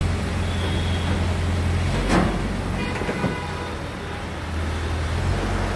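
Crane engine running steadily under a lift, with a sharp knock about two seconds in.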